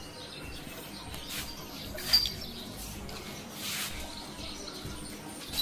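Dogs play-wrestling on a tiled floor: a few soft scuffs and taps over a quiet background. A short, high chirp comes about two seconds in and is the loudest moment.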